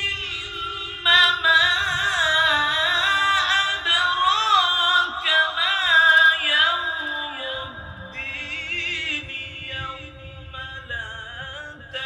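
A male qari chanting Quran recitation (tilawat) in long, ornamented melodic phrases into a microphone, the pitch wavering and gliding. The voice is strong for most of the first seven seconds, then continues more softly.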